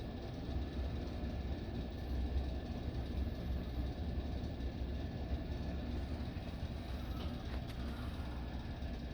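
Corbett Lighting Calcutta 36-inch ceiling fan and the other main-floor ceiling fans running steadily at medium speed: a low rumble of moving air with a faint steady high tone.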